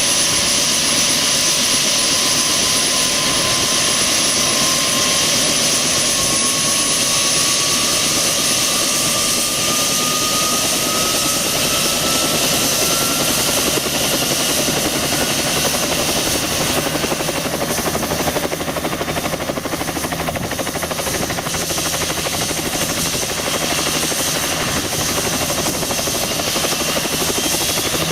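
Bell 206LT TwinRanger's turbine engines spooling up during startup: a loud turbine whine rising slowly in pitch, with the rotor beat building into a steady throb about halfway through. A second, higher whine starts rising near the end.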